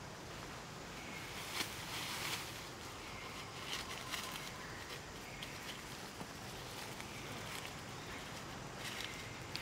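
Dry fallen leaves crackling and rustling underfoot, as scattered short crunches over a faint steady hiss.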